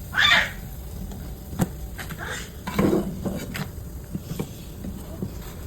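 Kitchen utensils and dishes knocking and clinking, a scatter of sharp clicks with a denser clatter about three seconds in. A brief loud voice-like sound comes at the very start.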